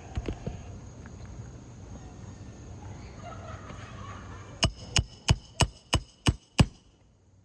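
Hammer driving roofing nails into an asphalt shingle: a few soft knocks, then seven quick, evenly spaced blows at about three a second, each with a short metallic ring.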